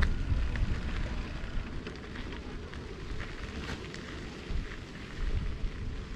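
Wind buffeting the microphone on a moving bicycle, a rough, fluttering rumble, with the crunch and scattered small clicks of the tyres rolling over a sandy dirt track.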